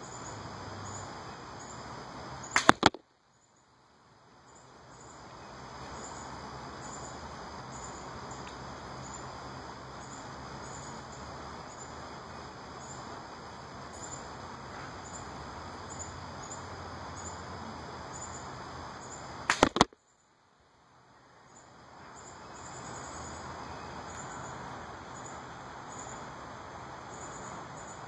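Two arrow shots from a bow, about 17 seconds apart, each a sharp, loud crack of two or three quick strikes, with the sound dropping out for a moment after each and fading back in. Crickets chirp steadily in the background.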